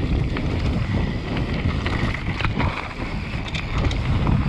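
Enduro mountain bike descending a dirt trail at speed: wind buffeting the microphone over the rumble of knobby tyres on loose ground, with short rattles and clicks from the bike as it runs over bumps.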